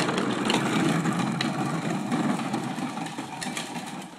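Hard plastic wheels of a child's ride-on toy car rolling over asphalt: a steady, rough rumble that eases off near the end.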